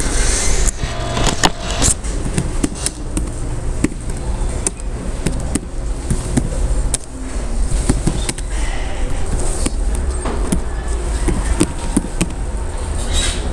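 Computer keyboard being typed on: irregular sharp key clicks over a steady low hum.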